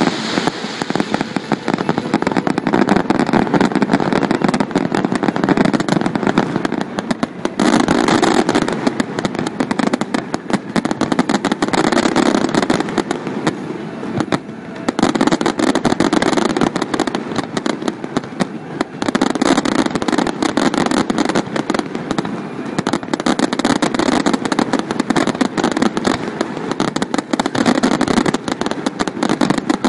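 Fireworks display: a dense, continuous barrage of bangs and crackles with hardly a gap, easing off for a moment three times.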